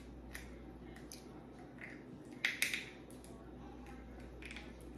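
Hard crab leg shell being cracked open: a few sharp cracks and snaps, the loudest cluster a little over two seconds in.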